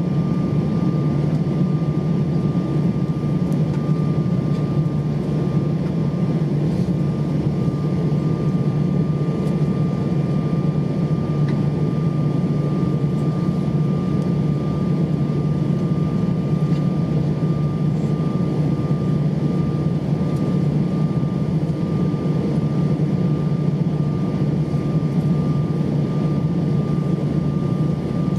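Steady cabin noise of an Airbus A320-232 on the ground with its IAE V2500 engines idling: a constant low hum with a thin, unchanging whine above it.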